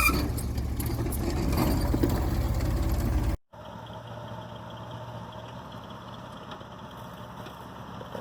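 Off-road vehicle engine running low and steady. About three and a half seconds in it cuts off abruptly, giving way to a quieter steady background hiss.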